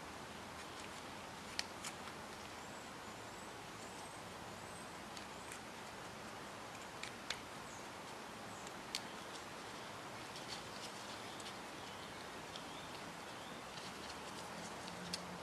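Quiet steady hiss with a few sharp, isolated clicks of small tools and parts being handled on a workbench.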